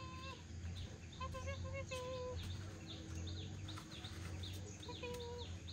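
Farmyard animal and bird calls: three short pitched calls, one at the start, a wavering one just after a second in and one near the end, while short high chirps repeat about twice a second from the middle on, over a steady low hum.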